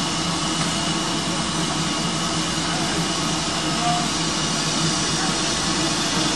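Steady hiss of steam from the standing saddle tank steam locomotive 'Sir Berkeley', with a faint low hum underneath and no exhaust beats.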